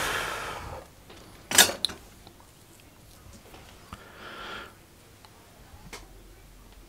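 Small tools being handled at a workbench: one sharp metallic clack about a second and a half in and a fainter click near the end, with short soft hisses at the start and around four seconds.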